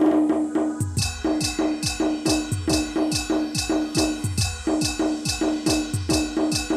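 Instrumental stretch of Adivasi band timli music: a repeated keyboard-like note over fast drum strokes, about three a second, each with a deep boom that drops in pitch. The beat comes in about a second in.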